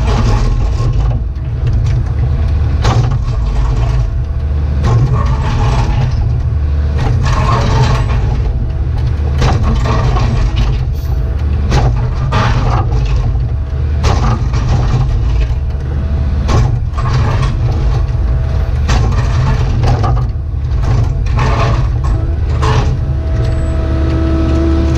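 Cat 304E2 mini excavator's diesel engine running steadily under digging load, heard from the cab, with frequent irregular clanks and scrapes of the bucket working through hard, stony ground.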